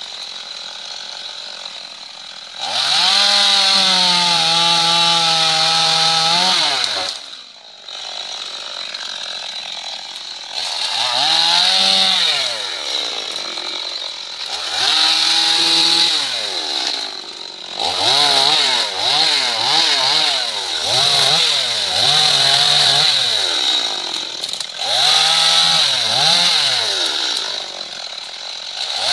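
Stihl two-stroke chainsaw running at idle and revving repeatedly to full throttle as it cuts into a felled trunk and its branches. The revs come as bursts of a few seconds, with a run of quick, short throttle blips in the second half.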